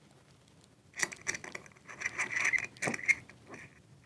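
Small screwdriver turning a screw to fasten a hot-shoe mount onto an aluminium camera cage: a run of small metal clicks and a squeaky scraping, starting about a second in and stopping near the end.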